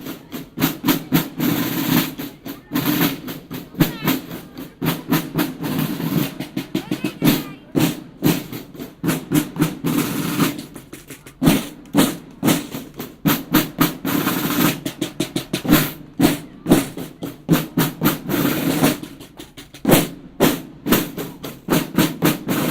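Snare drums of a boys' marching band playing a marching cadence, with quick rolls between the steady beats.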